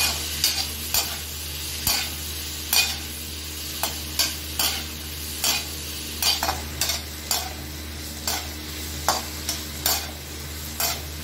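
Perforated metal spatula scraping and clinking against a metal kadhai as pieces of pointed gourd (parwal) are stir-fried. The strokes come irregularly, about one or two a second, over a steady frying sizzle.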